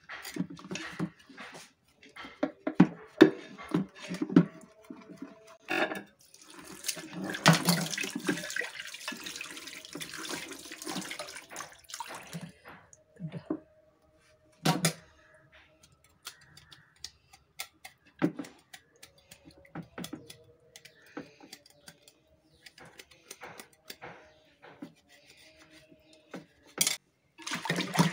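Water running and splashing from a tap into a sink or basin as raw ribbonfish is washed, with scattered knocks and clatter of utensils. The heaviest splashing is a longer stretch in the first half.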